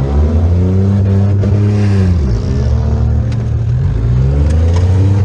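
Demolition derby car's engine, heard from the driver's seat, revving hard up and down: the revs drop about two seconds in, then climb again. A couple of sharp knocks come later on.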